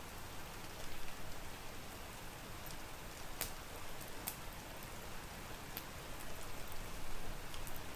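Steady rain hiss with a handful of sharp, isolated clicks scattered through it.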